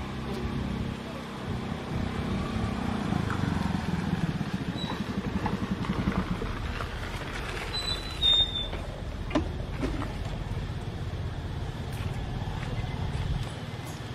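Steady low rumble of a motor engine running, with a short high chirp about eight seconds in.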